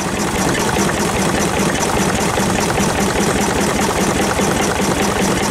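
Bamford SD3 6 hp single-cylinder stationary diesel engine running steadily, its beats coming in an even, rapid rhythm.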